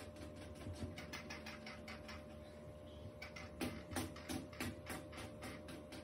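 Monk parakeet foraging in a stainless steel food bowl: irregular faint clicks and taps of its beak on seed and the bowl, a few a second, a little stronger a few seconds in.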